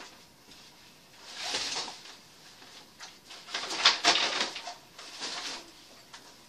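A closet door being pushed shut by hand: rustling and movement, then a cluster of sharp knocks and clicks about four seconds in as the door swings closed and latches.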